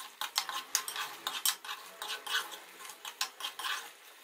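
Metal spoon scraping and clinking against an aluminium karahi while stirring koftas through thick masala: a run of irregular quick scrapes and taps.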